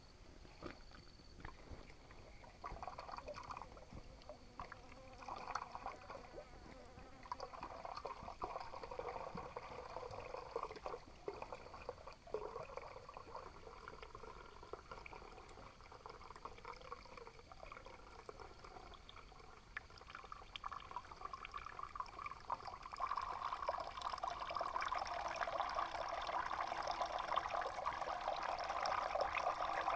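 Water trickling and pouring, growing louder and fuller about 23 seconds in.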